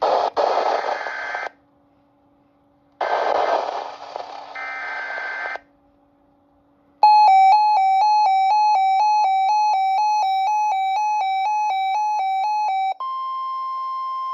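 NOAA Weather Radio Emergency Alert System tones: two harsh, buzzy digital header bursts, then from about 7 s a rapidly pulsing electronic alert beep. Near the end it switches to the steady single-pitch weather radio warning alarm tone, the signal that a broadcast alert message follows.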